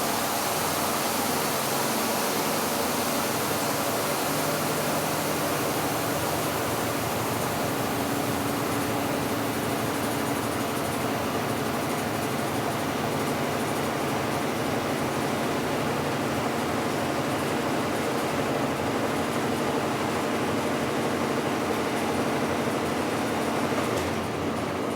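Washing machine in its spin cycle: the drum spinning and the motor running with a steady whirring hum.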